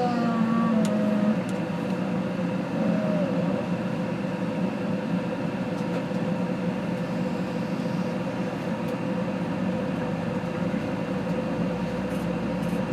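Steady mechanical hum with a constant low drone, from a machine running in the room. Faint brief tones sound in the first second or so.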